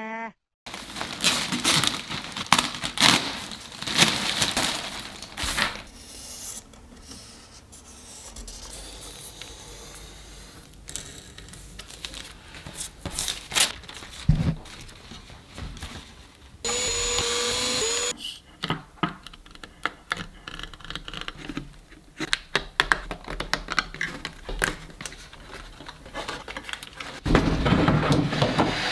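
Workbench handling noises: tape being torn and pressed on, plastic crinkling, and clicks and knocks of small parts. A short pitched whir comes about two-thirds through, and a louder steady rushing noise starts near the end.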